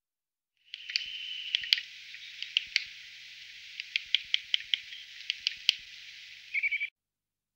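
Eurasian nuthatch calling: a series of short, sharp notes at irregular intervals, opening with a brief steady whistled note about a second in and ending with a short rising note.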